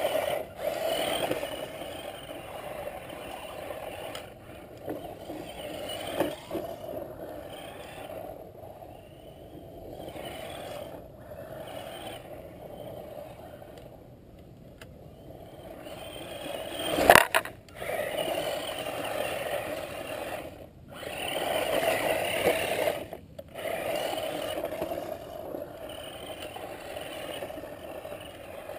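ECX Torment 1/18 scale RC short course truck's brushed electric motor and gears whining while its tyres churn through snow, rising and falling with the throttle and cutting out briefly a few times. A sharp knock about 17 seconds in is the loudest sound.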